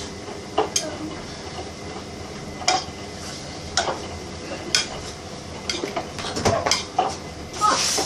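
Things being moved about on kitchen cupboard shelves: scattered knocks and clinks of objects being picked up and set down, roughly one a second.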